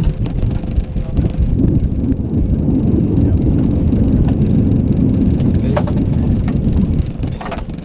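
Boat under way: an outboard motor running under a heavy, uneven rumble of wind on the microphone. The sound eases about seven seconds in.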